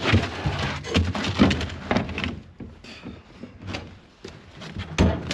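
A few knocks and scrapes as a snow-covered padded piece is pulled out of the aluminium body of an amphibious vehicle, louder in the first two seconds and again near the end.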